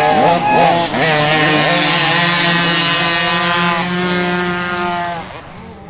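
Small two-stroke youth motocross bikes at full throttle: in the first second several engines rev up and down together, then one engine holds a steady high-revving note for about four seconds and fades away near the end.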